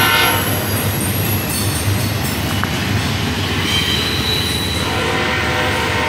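Double-stack container train's well cars rolling past close by, a steady rumble and clatter of wheels on rail with faint high wheel squeal. The locomotive horn cuts off just as it starts, and a steady hum comes in about five seconds in.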